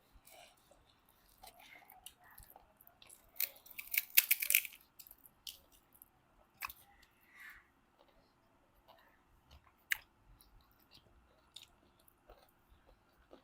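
Mouth sounds of someone chewing pork, with scattered small clicks and a burst of loud crunching bites about four seconds in.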